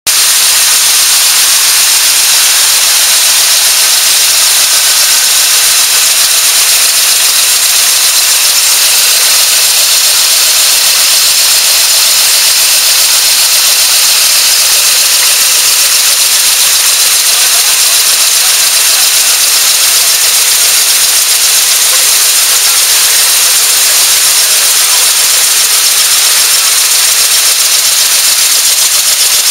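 BABY MK8 cigarette making machine running at production speed: a loud, steady mechanical hiss with a thin high whine.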